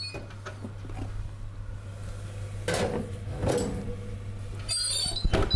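A lidded Tupperware Ultra Pro casserole dish being loaded into an oven: scraping and clatter as it slides in, then a knock near the end.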